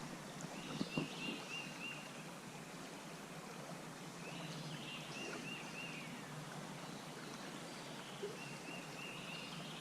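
A bird singing a short phrase of four or five quick, even notes, three times over, against a steady background hiss, with a couple of faint knocks about a second in.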